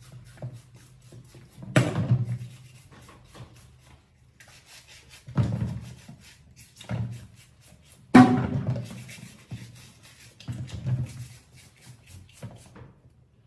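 Washing up at a stainless steel sink: a bottle brush scrubbing in quick scratchy strokes, broken by about five sudden knocks of items against the sink, the loudest just past halfway.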